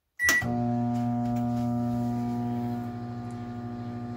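Microwave oven starting: a short keypad beep and a click, then the steady hum of the oven running, a little quieter from about three seconds in.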